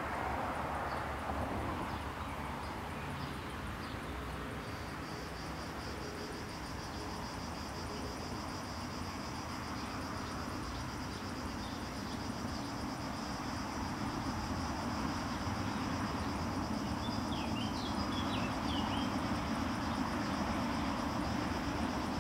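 Insects trilling in a steady high-pitched buzz that sets in about five seconds in, over a low rumble that slowly grows louder toward the end. A few short bird chirps come late on.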